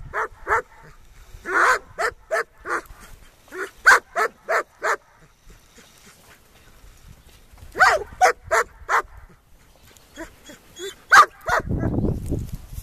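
Rottweiler puppies barking in play: short, sharp barks in quick runs of three to six, with pauses of a second or two between runs. Near the end there is a low rumbling noise lasting about a second.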